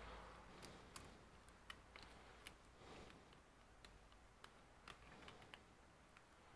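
Near silence with faint, irregular small clicks: a probe tip tapping and touching components on a laptop motherboard.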